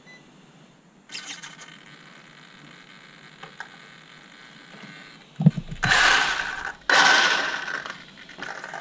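Small electric cooling fan on a Hobbywing Max6 ESC running with a faint steady whir. Past the middle come a few thumps, then two loud, second-long bursts of hissing noise from handling.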